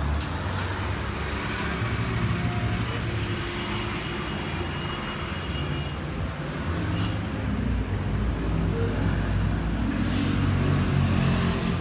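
Steady low rumble of background noise, growing a little louder in the second half.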